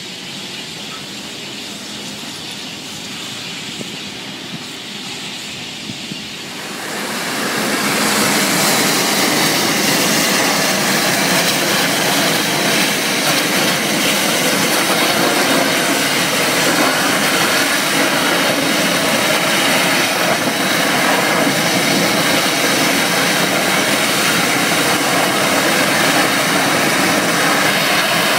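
Steady roaring hiss of a pressurised gas fire being fought with fire hoses, with water spray from the nozzles. About seven seconds in it swells sharply louder and then holds steady.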